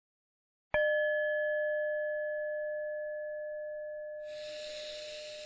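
A meditation bell struck once about a second in, ringing on with a clear steady tone that slowly fades, marking the end of the 15-minute meditation. Near the end, a long soft breath is heard over the ringing.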